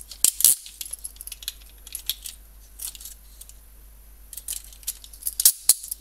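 Metal handcuff keys on a large key ring clinking and jangling as they are handled. The clicks come irregularly, loudest about half a second in and again near the end.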